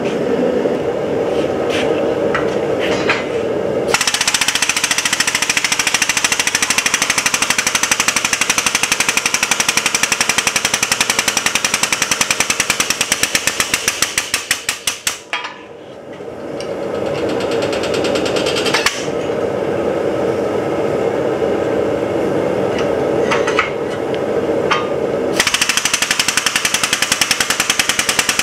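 Air-over-hydraulic shop press pump chattering in a rapid, even pulse as it drives the ram down to flatten hot steel strips. The pulsing stops for a while in the middle. Before it starts, and again in that pause, there is a steady rushing sound.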